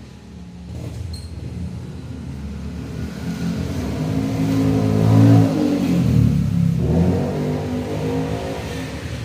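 An engine revving, its pitch rising and falling, loudest about five seconds in.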